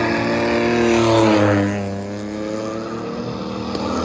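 Drift car engine at high revs. Its pitch falls about a second and a half in, and then it runs lower and quieter.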